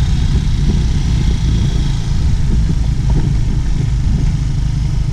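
Motor scooter engine running steadily on the move, under a heavy, even low rumble.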